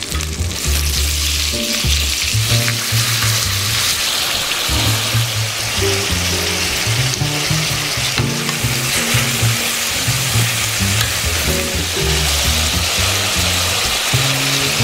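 Food frying in oil in a pan, a steady sizzle, with background music's low bass notes underneath.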